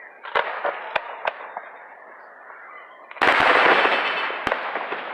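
Aerial fireworks going off: three sharp bangs in the first second and a half, then a much louder, longer burst about three seconds in that fades slowly, with one more bang near the end.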